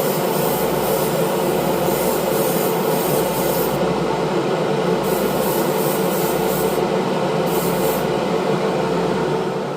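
Airbrush compressor running steadily with a constant hum, while black base-coat paint sprays through the airbrush. The spray's hiss cuts out and comes back several times as the trigger is released and pressed.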